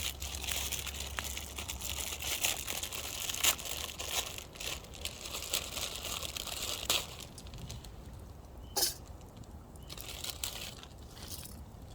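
Plastic food packets of ramen noodles and instant potato being handled, crinkled and torn open, with many small crackles, busiest in the first seven seconds and sparser after.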